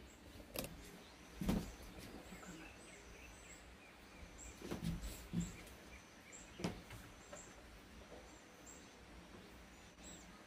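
A small bird's short, high chirps repeated over and over, faint against a quiet outdoor background, with a few soft knocks in the middle.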